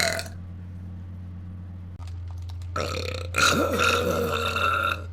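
A woman letting out one long, loud burp lasting about two seconds, starting a little past the middle. A steady low hum runs underneath.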